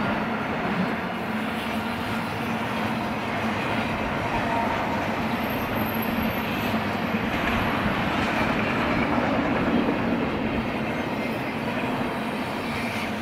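Double-stack intermodal freight cars rolling past on steel wheels and rail: a steady, continuous running noise with a low hum underneath.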